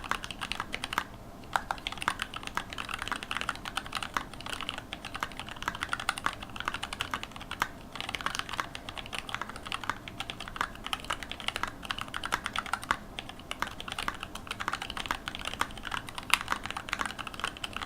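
Fast, continuous typing on a mechanical keyboard with lubed TTC Black linear switches, a carbon fiber plate and blank PBT keycaps: a dense run of key strokes and key returns, broken by a few short pauses.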